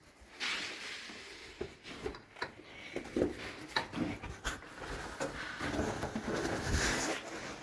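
Rustling and scraping of a caver moving through a narrow rock passage: clothing and shoes rubbing against stone, with scattered knocks and scuffs.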